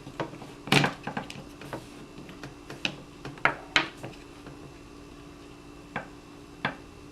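Small plastic and metal paintball pistol parts clicking and knocking as the bolt housing is worked onto the power tube and ball detent, with about a dozen irregular sharp clicks.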